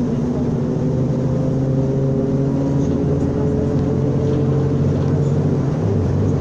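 Mercedes-Benz O500U city bus with automatic transmission, its engine running under way. The engine note rises slowly as the bus gathers speed, then changes a little near the end.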